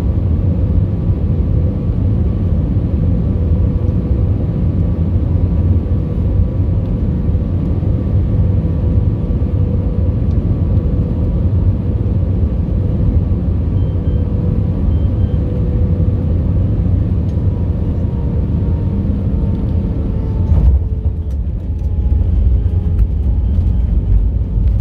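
Airliner cabin noise beside the wing on short final: a steady rumble of airflow and jet engines, with an engine tone that sags slightly as thrust comes back. About twenty seconds in the aircraft touches down: the hiss changes suddenly and rattles and knocks of the runway roll follow.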